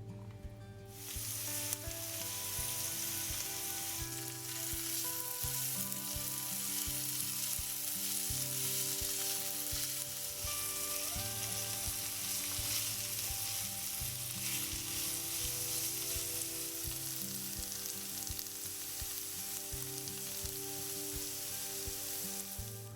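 Food frying in a pan of hot oil, a steady sizzle that starts abruptly about a second in and cuts off just before the end.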